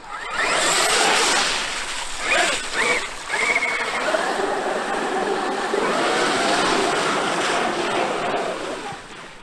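Traxxas X-Maxx brushless electric RC monster truck driving. Its motor and drivetrain whine rises and falls with the throttle over a rush of tyre and ground noise. It starts about a third of a second in and drops away near the end.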